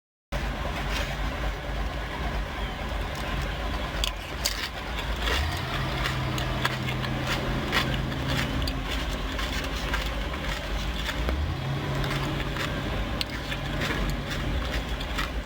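Steady low rumble of a car cabin, with scattered sharp crunches and clicks from eating corn chips.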